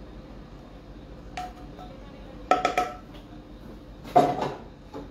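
Metal frying pan clanking with a short ringing tone, as food is scraped out of it with a wooden spatula and the pan is put back on the stove: a quick cluster of knocks about two and a half seconds in and a louder clank about four seconds in.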